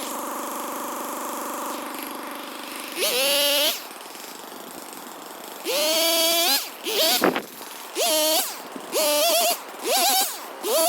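Snowmobile engine running steadily, then revved in a string of short bursts, each a quick rise in pitch held for about half a second, roughly one burst a second from about three seconds in.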